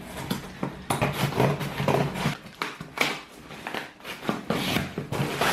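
A pocket knife slicing through the packing tape on a cardboard box, then the cardboard flaps torn and pulled open, in a run of irregular scraping and ripping strokes.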